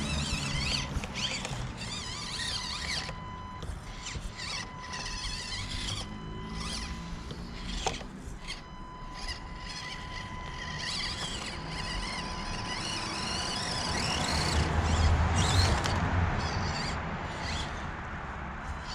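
Small electric motor and drivetrain of an Axial SCX24 Deadbolt 1/24-scale crawler whining as it crawls over rocks, with a steady high whine throughout and a louder burst of wheel speed about 14 seconds in.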